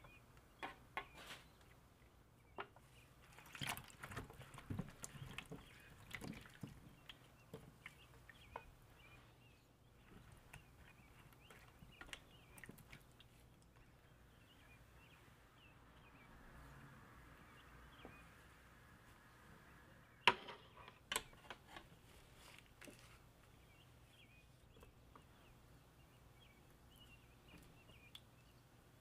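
Soft, scattered clicks and taps of kitchen handling: a roasted leg of lamb lifted off a wire rack, and seasoned vegetables moved about in a metal roasting pan with tongs. A sharper clink comes about twenty seconds in.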